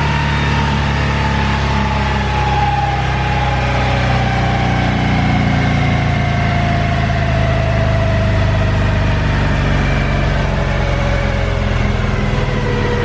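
2018 Harley-Davidson Fat Bob's Milwaukee-Eight 114 V-twin running steadily on a dyno at low revs, with a whine that falls slowly in pitch throughout.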